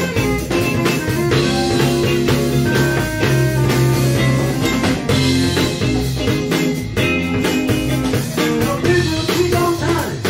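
Live blues-rock band playing: electric guitar, bass and drum kit keep a steady beat, with a tambourine shaken along.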